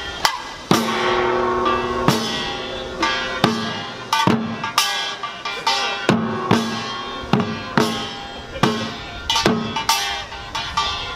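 Korean samul nori percussion ensemble playing: janggu hourglass drums, buk barrel drum, kkwaenggwari small gong and jing gong struck in a slow, spaced rhythm of about two strokes a second, each stroke leaving a ringing metallic tail.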